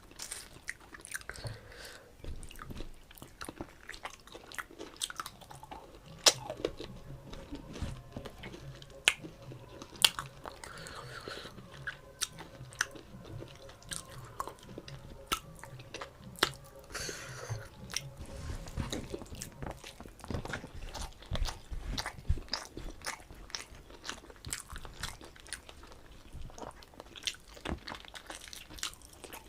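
Close-miked chewing and biting of rice with mutton curry, with wet mouth sounds and frequent irregular sharp crunches and clicks.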